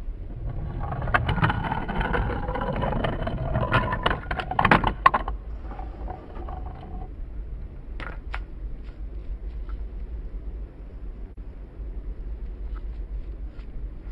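Wooden toy train rolling along a wooden track, its wheels clattering over the track with many sharp clicks for about five seconds. It then drops to a fainter rumble with a couple of clicks around eight seconds in.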